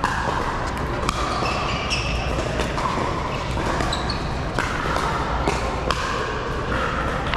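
Pickleball paddles hitting a plastic ball in a doubles rally: several sharp pocks, spaced irregularly, echoing in a large indoor hall over a background murmur of voices and play on other courts.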